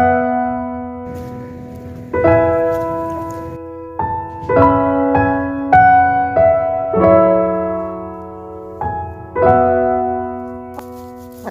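Background music: slow piano chords, struck one after another, each ringing out and fading.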